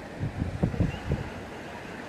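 Wind buffeting the microphone in a few irregular low rumbles over a steady outdoor hiss.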